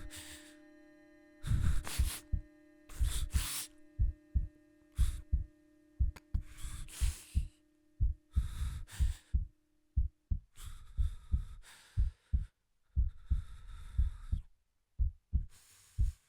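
Film sound design: deep thuds in an uneven, heartbeat-like pulse, often in pairs, over a held low tone that stops about ten seconds in, with brief swishes of higher noise.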